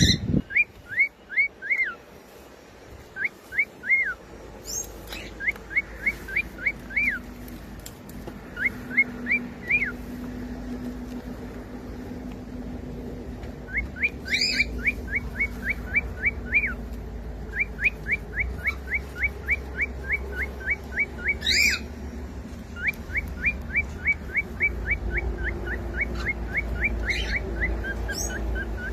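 Cockatiel whistling and chirping: runs of short, quick repeated notes, about four a second, broken by a few sharp, higher calls.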